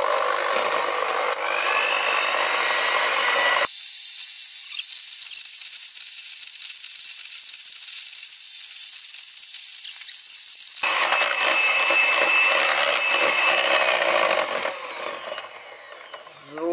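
Electric hand mixer running steadily, its beaters whipping a margarine, egg yolk and powdered-sugar batter in a bowl; it is switched off near the end.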